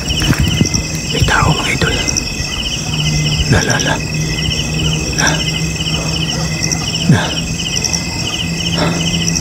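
Night insects, crickets among them, chirping in short pulse trains that repeat about every two-thirds of a second over a steady high-pitched drone. Low rustling and scuffing noise sits close to the microphone.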